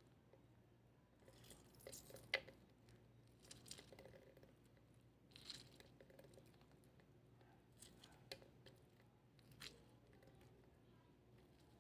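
Faint squishing and crackling of juicy lemon halves squeezed by hand, with scattered small clicks, the sharpest about two and a half seconds in.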